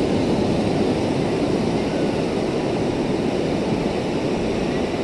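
Steady rushing noise of sea wind and surf at the shore, with no distinct tones or knocks.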